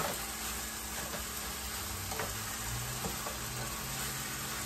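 Chicken and vegetables sizzling in a hot sauté pan in soy and oyster sauce while being stirred with a wooden spatula, with a few light knocks of the spatula against the pan.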